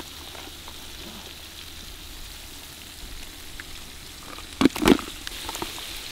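King crab pieces frying in oil and masala in a large pot, a steady sizzle. A brief clatter of the metal spatula against the pot about three-quarters of the way through.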